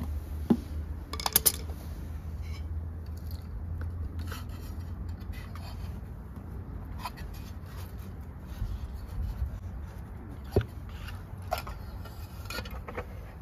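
Screwdriver prying and scraping the silicone-sealed valve cover off a Honda GCV engine: scattered scrapes, clicks and taps of tool on metal, with a sharp knock near the end, over a steady low hum.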